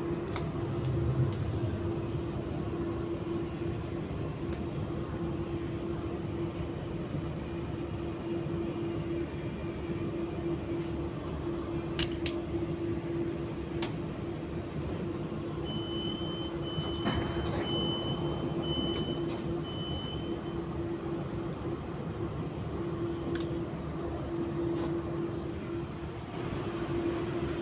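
Inside an Auckland AM class electric train running between stations: a steady electric hum over wheel and track noise. About halfway through comes a run of five short high beeps, and there is a sharp click about twelve seconds in.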